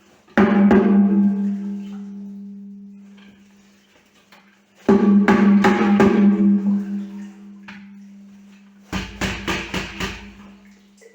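Music: a short phrase of drum hits over a held low note, played three times about four and a half seconds apart, each time fading out.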